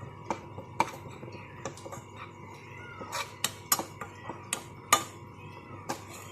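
A spoon stirring dry spice powders (coriander, chilli and turmeric) in a small pan as they roast over a low flame, with irregular clicks and taps of metal on the pan, most of them in the second half.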